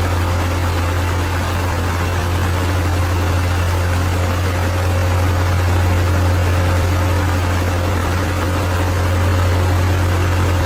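Bulldozer's diesel engine running steadily with a low, even drone.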